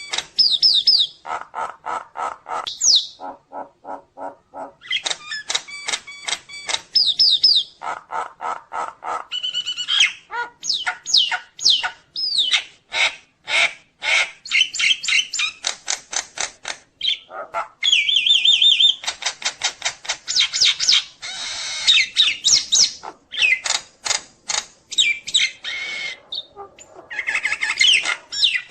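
Nias hill myna singing a fast, varied song packed with imitated calls of other birds: rapid runs of clipped repeated notes, whistled glides and rattling phrases, broken by a couple of short pauses.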